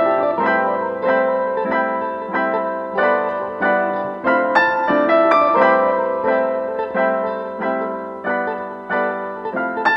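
Background piano music: a steady run of struck piano notes and chords.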